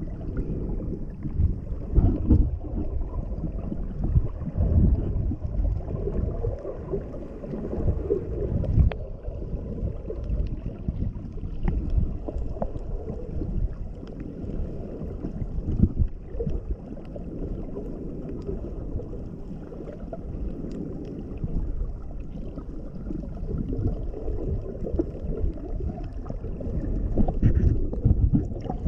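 Muffled underwater sound picked up by a GoPro Hero6 held beneath the surface: a low, uneven rumble and sloshing of water moving around the camera, swelling and fading, with a few small clicks.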